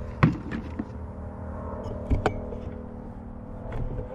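Plastic bucket being handled and set down: a few sharp knocks and clatters, the loudest about a quarter second in and two more close together around two seconds in, over a steady low hum.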